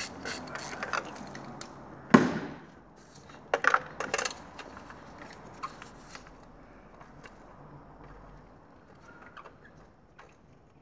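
Ratchet wrench clicking as a freshly loosened spark plug is backed out, then a single sharp metallic knock about two seconds in and a short clatter of tool and metal clicks a second or so later, settling into faint handling ticks.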